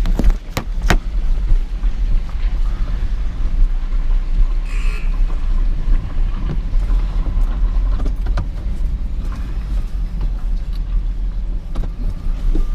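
A vehicle engine running steadily, with three sharp metal clanks in the first second.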